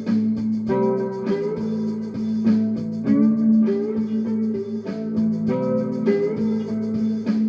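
Short-scale (19-inch) fretless string instrument tuned A-E-a, played as a looped improvisation at 100 bpm. Plucked notes fall on the beat over a steady drone, with some notes sliding up or down in pitch.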